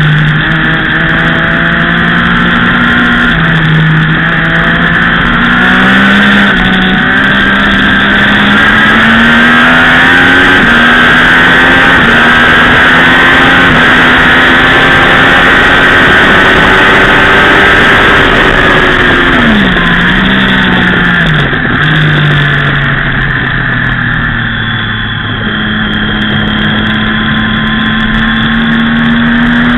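Sportbike engine at high revs on a race track, heard from an onboard camera: its pitch steps up through several upshifts and climbs on a long straight, then drops sharply about two-thirds through as the bike brakes and downshifts for a corner, and rises again near the end. Wind rushes over the microphone throughout.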